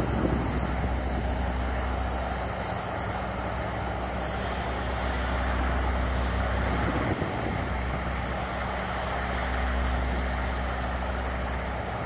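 Heavy asphalt-paving machinery (a paver, the hopper machine feeding it, and a dump truck) with its diesel engines running steadily, a continuous low hum.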